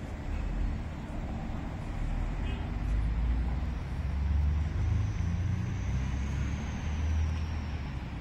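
Outdoor background noise in a city park: a steady low rumble that swells and eases, typical of surrounding city traffic. A faint high whine joins from about halfway and fades near the end.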